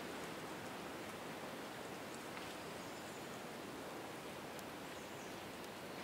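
Wind blowing through forest trees: a steady rustle of leaves, with a few faint high ticks.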